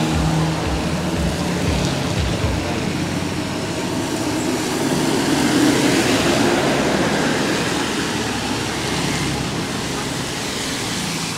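Road traffic on a rain-wet road: vehicle engines and tyres on wet asphalt, swelling as a bus passes close about five to seven seconds in.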